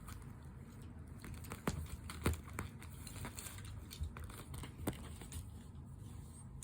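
Newly woken kittens stirring in their bedding: soft rustling and crinkling, with a few sharp clicks and taps.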